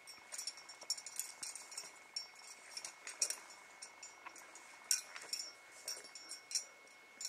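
Climbing hardware (carabiners and quickdraws racked on a harness) clinking irregularly as a climber moves up rock: many small metallic chinks with a bright ring.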